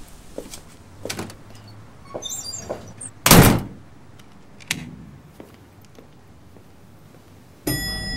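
An apartment front door being unlocked and opened: a few lock and handle clicks, one loud swing-and-shut about three seconds in, then a single latch click. Near the end a steady hum and rumble of a running elevator starts abruptly.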